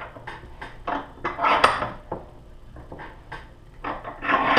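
Steel bench vise being tightened to press a needle-bearing trunnion into an LS1 rocker arm between two thick washers: a run of light metallic clicks and clinks, about two or three a second, with two longer, louder stretches of metal noise, about a second and a half in and near the end.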